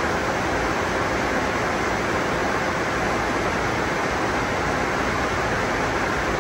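Tunnel car wash dryer blowers running, a steady, even rush of air with no breaks.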